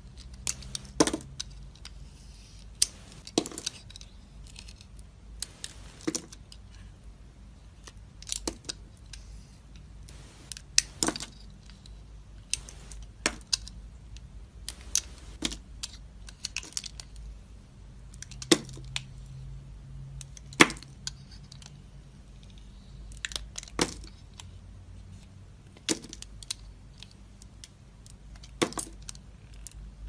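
A snap-off utility knife blade cutting through a hard bar of soap: irregular crisp cracks and crunches, one every second or two and sometimes several in quick succession, as slices and chunks split off.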